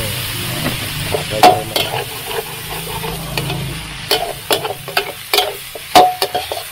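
Eggs and pickled garlic stir-frying in a wok: a steady sizzle, with a metal spatula scraping and knocking against the pan. Two sharper clangs ring briefly, about one and a half seconds in and near the end.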